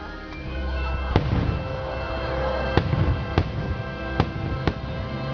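Fireworks bursting over the show's music: about five sharp bangs in quick succession, the music's held notes and low rumble going on underneath.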